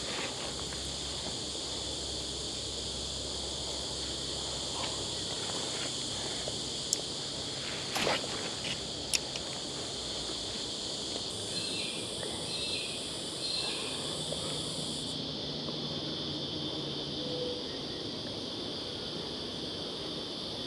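Steady high-pitched insect chorus. A few sharp clicks come about seven, eight and nine seconds in.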